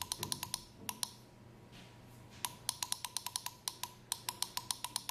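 Rapid short clicks from the key of a Full Gauge TIC-17RGTi temperature controller being pressed over and over, about six a second, as the set point steps up a tenth of a degree per press. A handful come in the first second, then a long steady run after a pause of about a second and a half.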